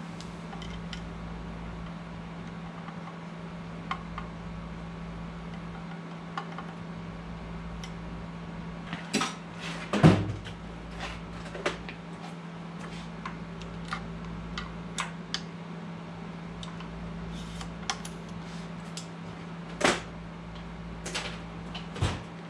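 Scattered clinks and knocks of metal tools and parts being handled on a mill-drill table during a digital readout scale install, the loudest knock about ten seconds in, over a steady low hum.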